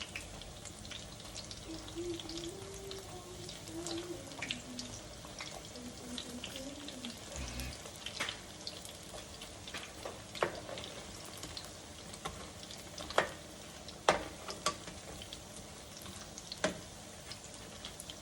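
Battered cauliflower deep-frying in very hot oil in a skillet: a steady sizzle with scattered sharp pops and crackles.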